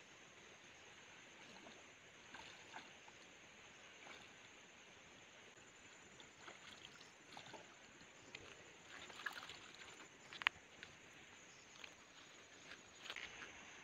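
Faint water sounds: scattered small splashes and drips over a low steady hiss, with a thin high-pitched tone running steadily behind. The sharpest splash or click comes a little past the middle.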